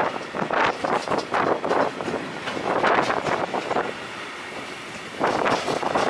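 Freight train rolling past, mixed with strong wind gusts buffeting the microphone. The noise comes in uneven surges, easing for about a second around four seconds in before picking up again.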